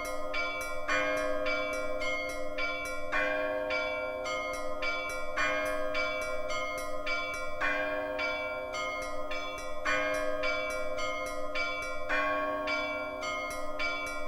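Russian Orthodox church bells ringing a steady repeating zvon. Every two seconds or so, a strike sets the deeper bells humming, and smaller, higher bells strike quickly in between, about four or five strokes a second.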